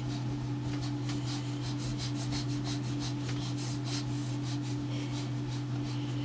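Wooden crib rubbing and clicking in quick, irregular strokes as a baby bounces against the rail, over a steady low electrical hum.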